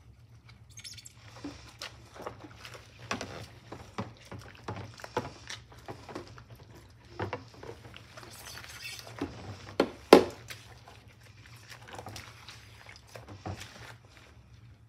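Rubber-gloved hands scrubbing a ceramic plate with a soapy cloth in a sink of suds: irregular wet rubbing, squeaks and splashes. One louder knock comes about ten seconds in.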